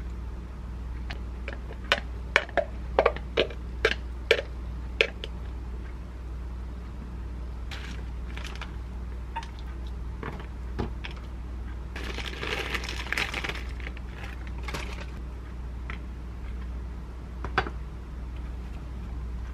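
Wooden chopsticks clicking sharply about eight times in quick succession while laying filling onto bread, then a plastic zip bag crinkling for a few seconds as shredded mozzarella is shaken out, with one more tap near the end. A steady low hum runs underneath.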